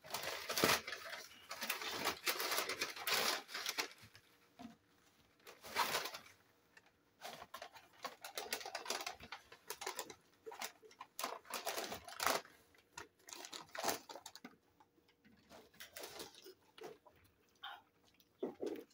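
Paper food wrappers and a paper fast-food bag being handled, rustling and crinkling in irregular bursts, quieter near the end.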